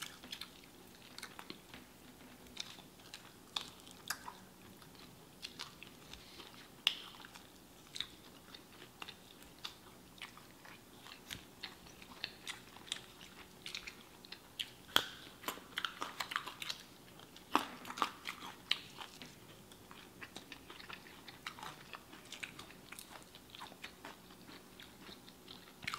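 Two people chewing chicken wings: irregular wet mouth smacks and small sharp clicks from eating.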